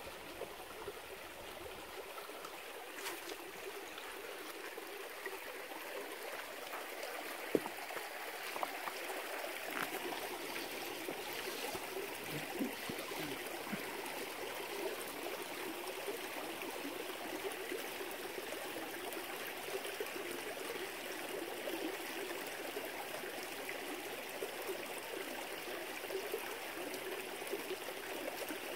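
Shallow rocky stream trickling and running steadily over stones, with one sharp click about a quarter of the way in.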